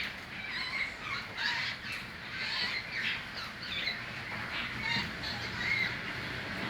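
Several birds chirping and calling together, a busy run of short, overlapping calls with no pause.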